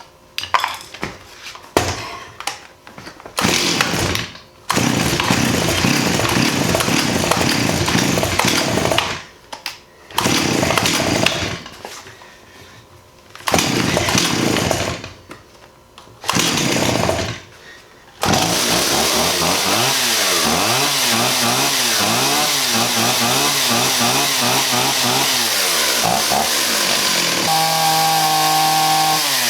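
Stihl 028 AV Super two-stroke chainsaw, its low-speed carburettor screw just reset to 1¼ turns out, starting up. It sputters, then runs in several short loud bursts of a few seconds each. From about two-thirds in it keeps running steadily, revving up and down, and settles to an even note near the end.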